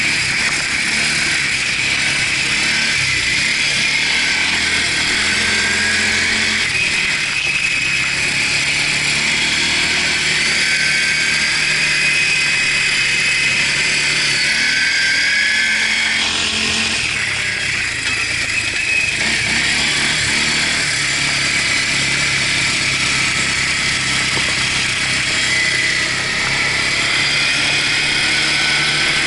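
Quad bike (ATV) engine running while being ridden, heard close up from on board, its pitch rising and falling as the throttle is worked.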